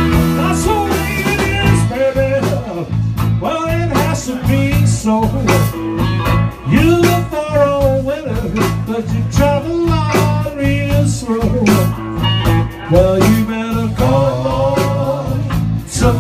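Blues band playing live: slide guitar gliding between notes over a bass line and steady drum beats.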